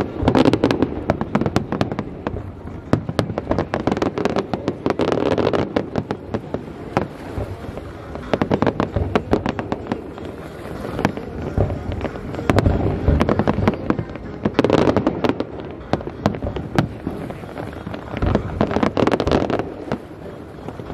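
Fireworks display: a dense run of aerial shells bursting, with rapid crackling and popping between the booms. It swells into louder volleys near the start, around five seconds in, in the middle, and again near the end.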